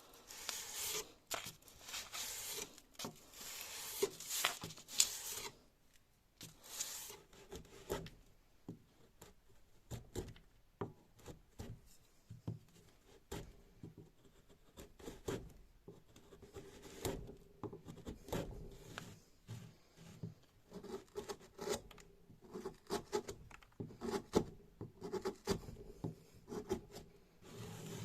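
Hand-worked abrasive rubbing strokes on an old chisel under restoration. They are dense and scratchy for the first five seconds, then turn softer and irregular, with small knocks and taps.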